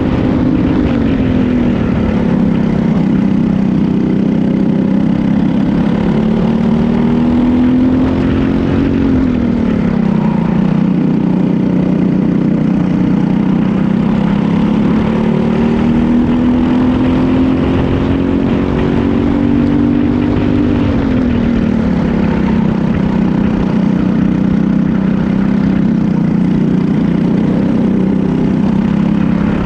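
Briggs & Stratton single-cylinder four-stroke kart engine at race pace, heard close up onboard. Its revs climb slowly along the straights and fall off quickly three times, near the start, about nine seconds in and about twenty-one seconds in, as the driver lifts for corners.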